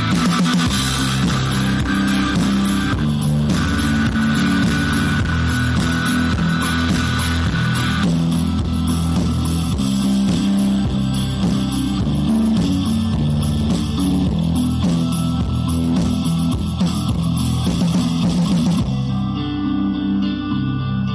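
Guitar-led background music playing steadily; its brighter, higher layer drops out about nineteen seconds in.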